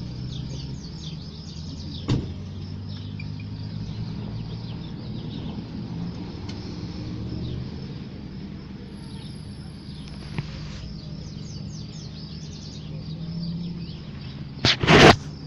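Outdoor background of a steady low rumble of distant traffic, with small birds chirping throughout. There is a sharp click about two seconds in, and a loud brief rustle near the end.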